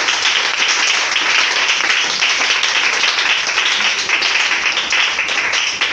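A crowd applauding: a dense, steady patter of many hands clapping that cuts off near the end.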